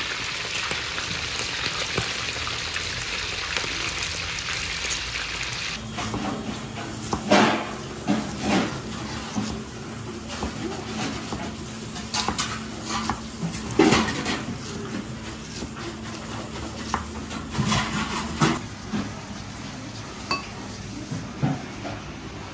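A steady hiss for about six seconds, then clattering and clinking of dishes and utensils with scattered sharp knocks, over a steady low hum.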